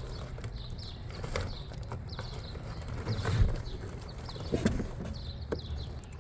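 Irregular knocks and clunks over a low rumble, with a bird repeating a short, high falling chirp about twice a second.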